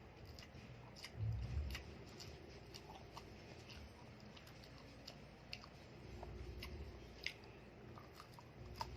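Quiet eating sounds: chewing, with scattered faint clicks and taps. A low bump comes about a second in.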